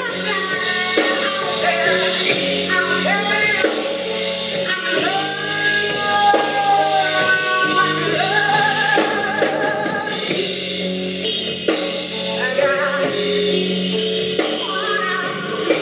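Live band performance: a woman sings long held notes with vibrato over bass guitar and drums.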